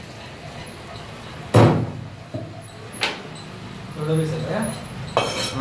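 A loud knock about a second and a half in, then a sharper, shorter one a second and a half later, over shop background noise, with voices talking near the end.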